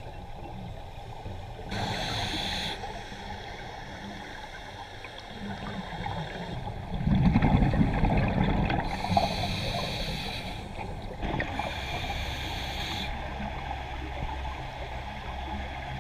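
Scuba diver breathing through a regulator underwater: hissing inhalations and a loud gurgling burst of exhaled bubbles, repeating every few seconds.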